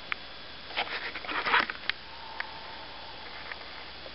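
Rustling and crackling of undergrowth and twigs close by: a few sharp snaps, then a louder crackling burst about a second in, then two more single snaps.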